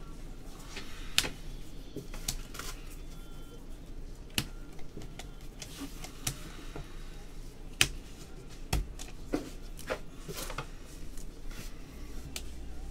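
Trading cards being handled and flipped through with gloved hands: scattered sharp clicks and slides of card edges, a second or two apart.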